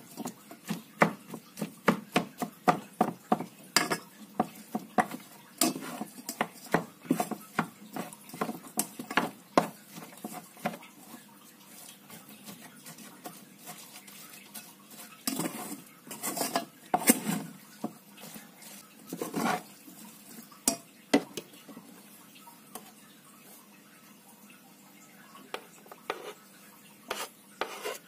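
A plastic rice paddle stirring and breaking up cooked rice in a rice cooker's metal inner pot, knocking and scraping against the pot in quick, irregular strokes. The strokes come thick and fast for the first ten seconds or so, then sparser, in short clusters.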